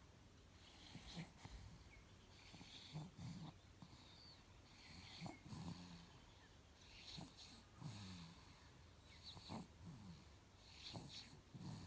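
Faint snoring: a breath about every two seconds, each with a low rasp and a hissing edge.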